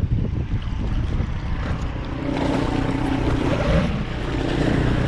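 Gusty wind buffeting the microphone during windfoiling, a heavy low rumble with rushing noise. A steady hum joins about two seconds in and fades a little later.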